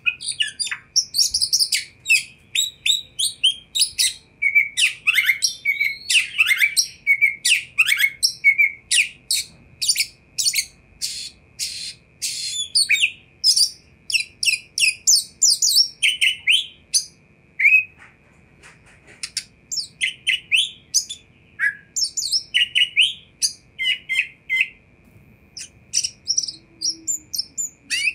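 Oriental magpie-robin singing: a fast, varied run of sharp chips and short whistled slides, with a brief lull about two-thirds of the way through.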